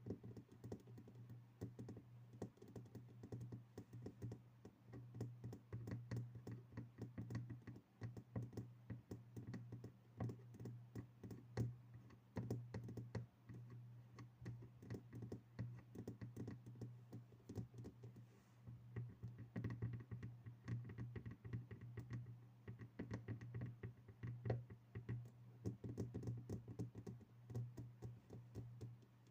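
ASMR fingertip tapping on objects: rapid, light taps, many a second, over a steady low hum.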